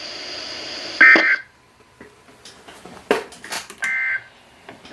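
Two short bursts of Emergency Alert System SAME digital data tones, a shrill warbling screech over a weather-radio broadcast: one about a second in and one near the end. Steady radio hiss cuts off right after the first burst, and a few clicks follow.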